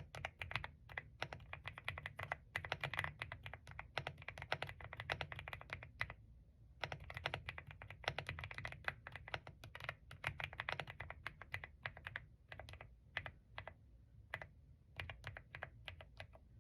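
Mechanical keyboard with a 'creamy' sound profile being typed on in fast runs of keystrokes, with a brief pause about six seconds in and sparser strokes toward the end.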